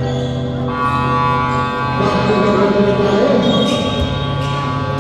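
Music with long held, layered notes that shift chord every couple of seconds.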